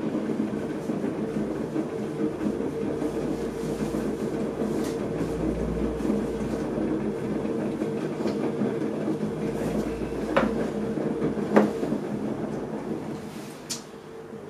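Electric potter's wheel running with a steady motor hum while a wooden throwing stick works inside the spinning clay pot. Two short sharp clicks come about ten and eleven and a half seconds in, and the hum gets quieter near the end.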